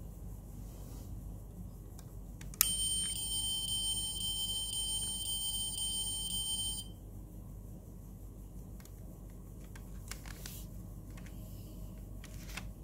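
A click, then a steady, high electronic buzzing tone for about four seconds that cuts off suddenly, from the sound feature of a diecast Toyota Camry scale model car. Light plastic handling clicks come later.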